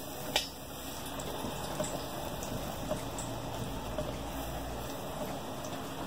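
Bara dough deep-frying in very hot oil: a steady sizzle with small crackling pops, and one sharp click about half a second in. The loud sizzle is the sign of oil hot enough to make the bara crisp.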